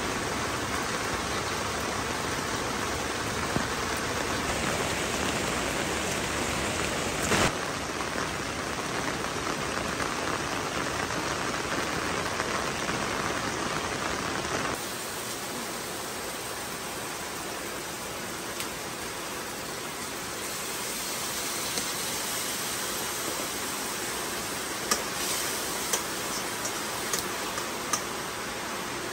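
Steady rain falling, a constant hiss that drops a little in level about halfway through, with a single knock about seven seconds in and a few light ticks near the end.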